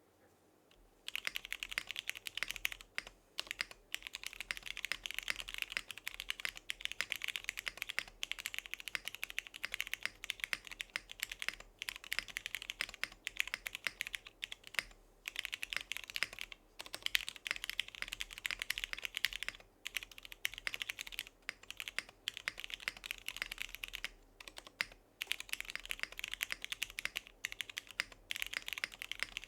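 Typing on a Monokei x TGR Tomo mechanical keyboard with lubed and filmed Cherry MX Ultraglide Black linear switches in an aluminium plate, under PBT keycaps: a rapid, steady run of keystrokes starting about a second in, broken by a few short pauses.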